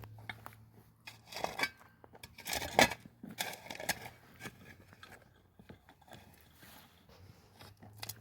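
Hands-on building work: scraping, crunching and scattered knocks of materials being handled and placed, loudest with a sharp knock a little under three seconds in.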